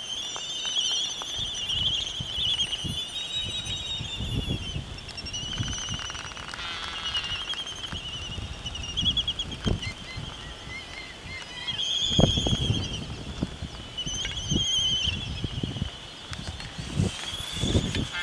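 Laysan albatross nesting colony calling: a continuous high-pitched chorus of many birds at once. Gusts of wind buffet the microphone now and then, the strongest about twelve seconds in.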